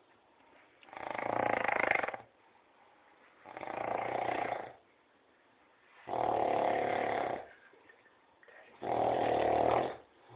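Snoring in a steady rhythm: four rasping snores, each about a second long and about two and a half seconds apart, with quiet breathing between them.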